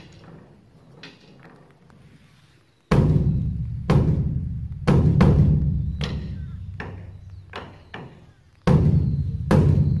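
Beopgo, the large Korean Buddhist dharma drum, beaten with two sticks. A quiet stretch with a few light taps gives way, about three seconds in, to heavy booming strikes that ring out. Lighter strokes follow, and another pair of heavy strikes comes near the end.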